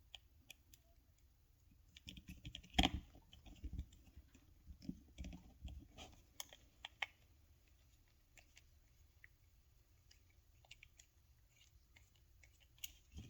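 Faint, irregular clicks and taps of small plastic key fob parts being handled and fitted together, a busy cluster with one sharp click about three seconds in, then only scattered ticks.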